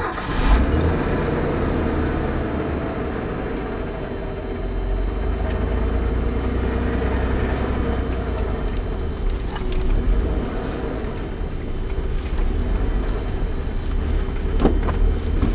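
1987 Ford F-150 pickup's engine starting up suddenly at the very beginning, then running steadily as the truck is driven slowly, a continuous low rumble with a steady hum.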